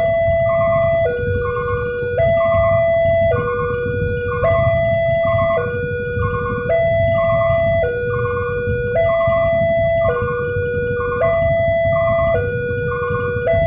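Railway level-crossing warning alarm sounding steadily: an electronic two-tone signal alternating between a higher and a lower note about every second, which signals that the crossing is closed for an approaching train. A low rumble runs underneath.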